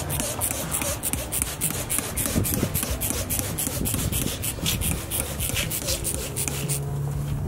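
Trigger spray bottle squirted over and over in quick succession, each pull a short hiss of spray, as beef short ribs on a smoker grate are spritzed mid-cook to keep the bark moist. The squirts stop about seven seconds in.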